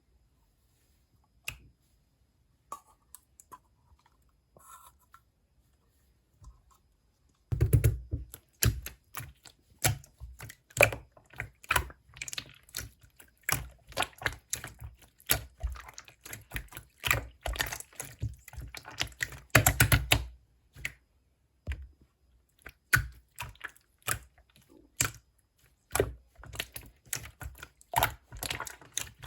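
Pink clear slime being pressed and squished by hand, making rapid sticky clicks and small air-bubble pops. Only a few faint ticks at first, then dense, irregular clicking from about seven and a half seconds in.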